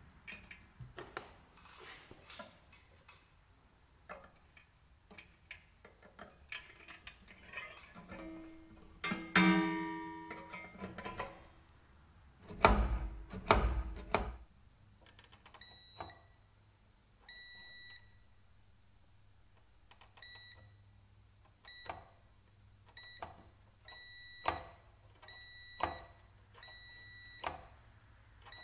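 Small metal clicks and clatter as a coil return spring is hooked onto a moped's rear brake lever, with one ringing twang about nine seconds in and a few low thumps around thirteen seconds. From about fifteen seconds a multimeter's continuity beeper sounds over and over, in short and longer beeps, as the brake lever is worked and its brake switch closes and opens.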